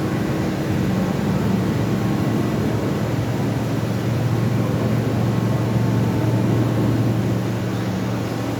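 Absorbent cotton processing machine running steadily, a continuous mechanical hum and whir with no change in speed.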